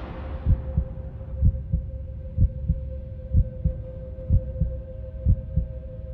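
Slow heartbeat sound effect, a double thump about once a second, over a steady humming drone; a second tone joins the drone about halfway through. A hissing tail fades out during the first second.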